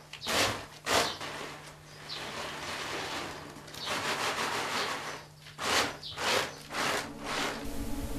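Round woven bamboo tray being shaken, making rasping, swishing strokes: a few short ones, then a longer rasp in the middle, then several more. Soft piano music comes in near the end.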